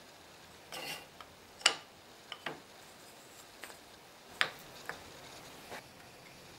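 Short strips of wood set down and shifted on a wooden workbench top: a scattering of about eight separate light knocks and clacks, the loudest about one and a half seconds in and again a little past four seconds.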